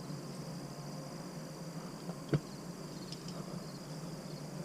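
Insects trilling in a steady, high-pitched chorus, with one sharp click about two and a half seconds in.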